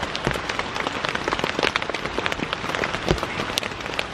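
Heavy rain falling on a tent, heard from inside: a dense, steady hiss with many sharp ticks of single drops striking the fabric.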